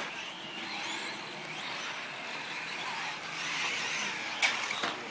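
Electric 4WD short course RC trucks racing on dirt: a rising and falling whine from their motors and gears over the noise of tyres on the track, with one sharp knock near the end.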